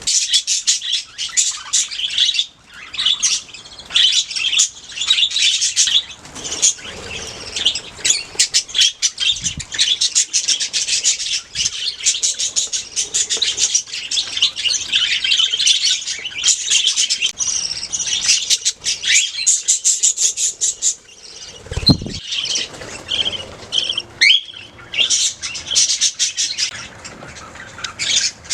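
Many budgerigars chirping and chattering at once in a dense, continuous colony chorus. There is one low thump about three-quarters of the way through.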